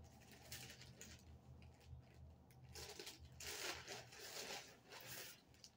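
Thin plastic clothing bag crinkling and rustling as it is handled and pulled open, in irregular bursts that are loudest in the second half.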